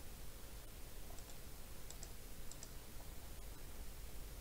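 Computer mouse buttons clicking, a few short clicks, several of them in quick pairs, over a faint low hum.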